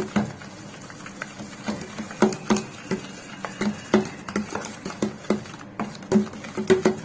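Steel spoon beating a soft butter-and-sugar batter in a stainless steel bowl: a run of irregular scrapes and clicks of the spoon against the bowl, about two a second.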